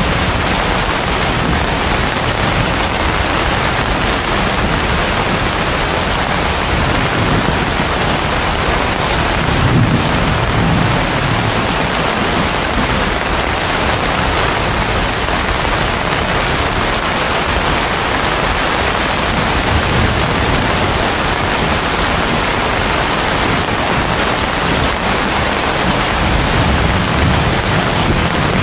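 Heavy rain falling steadily on banana leaves and palm fronds, a dense, even hiss. Low rumbles swell briefly about ten seconds in and again near the end.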